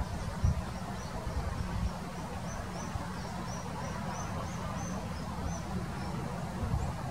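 Brown goshawk nestlings begging while being fed: a run of short, thin, high-pitched peeps, about three a second, that stops a little before the end. A steady low rumble runs underneath.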